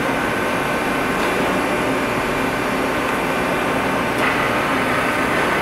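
Steady industrial machine noise: an even whirring hum with faint steady tones running through it, and a light click about four seconds in.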